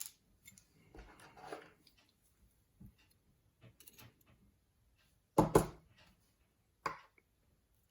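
Small sharp clicks and taps of lock pins, springs and tools being handled as a pin-tumbler challenge lock is taken apart, with a loud pair of clicks about five and a half seconds in and another near seven seconds.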